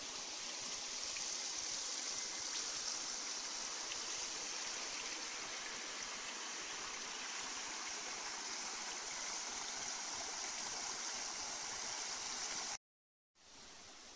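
Creek water flowing in a steady rush. It cuts off suddenly near the end and gives way to a much quieter, faint hiss.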